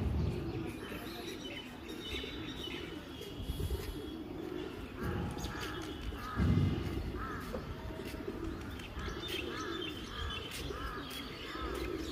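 Feral pigeons cooing, with small birds chirping in quick repeated notes through the second half. A low thump about six and a half seconds in.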